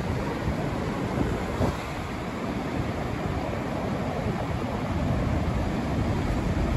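Wind blowing across the microphone over the steady wash of breaking surf.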